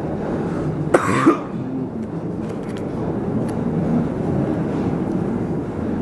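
TAT industrial ceiling fan with a stamped steel motor and heavy steel blades running on high, nearing full speed: a steady whoosh of moving air over motor hum. A short cough about a second in.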